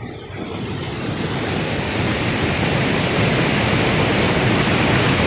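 River rapids rushing: a steady noise of white water that grows louder over the first two seconds and then holds steady.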